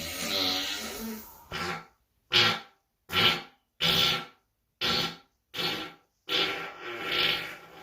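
A run of farts played one after another: a long one, then about six short blasts roughly a second apart with dead silence between them, then a longer one near the end.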